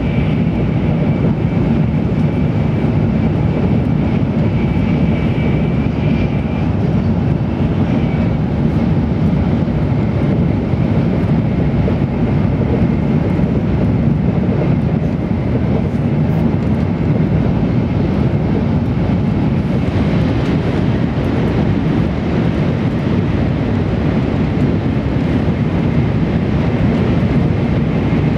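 Steady running noise inside a Tokaido Shinkansen N700-series passenger car at speed: a continuous low rumble of the train on the track, with a faint high whine during the first several seconds.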